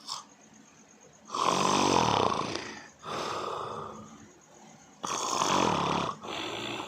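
Loud snoring: two rasping snores about three and a half seconds apart, each followed by a softer breath.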